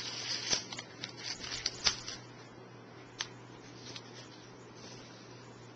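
Paper and cardstock being handled by hand, rustling with light clicks and taps, busiest in the first two seconds, with one sharper click a little after three seconds in. The pieces are handled while ribbon and tape are put on a handmade card.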